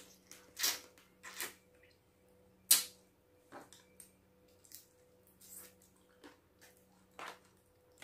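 Close-up mouth sounds of eating steamed crab meat, with a string of short sucks and smacks as the meat is taken off the shell at the lips. The loudest comes about three seconds in.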